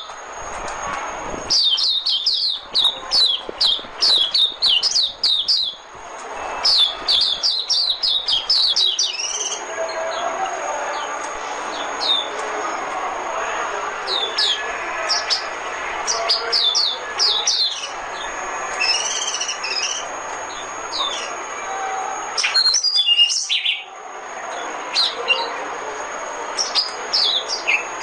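White-eye (vành khuyên) song: rapid runs of short, high, slurred chirps in bursts of a few seconds, with pauses holding scattered single notes, over steady background noise. It is a decoy-call recording used to lure white-eyes.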